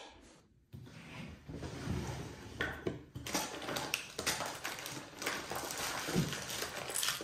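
Irregular handling noise at a wooden watchmaker's bench: soft rustling with several small sharp taps and clicks, starting abruptly after a brief silence.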